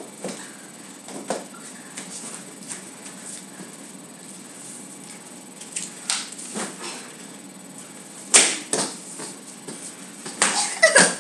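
Two boys scuffling and sparring on a hard floor: shoe scuffs and swishes of clothing and a swung cloth come in scattered short bursts, the loudest about eight seconds in. A short vocal sound comes near the end.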